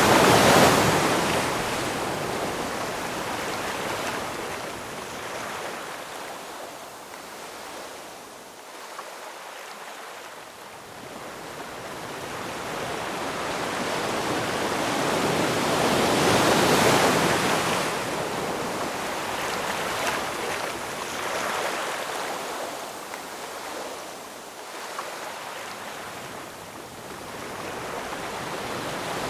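Ocean surf: waves breaking and washing up, the rush of water swelling and ebbing slowly. One wave breaks at the start, another about halfway through, and a third builds near the end.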